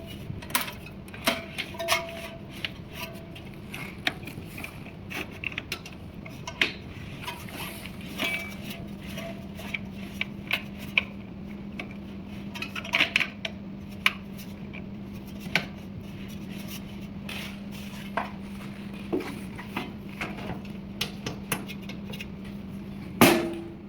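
Scattered metallic clinks and knocks from parts of a metal hose reel box being handled and fitted, over a steady low hum, with one loud knock near the end.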